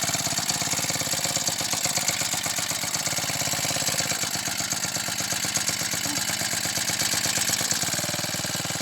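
Small grass-trimmer engine running steadily at a fast even beat, driving a water pump made from it.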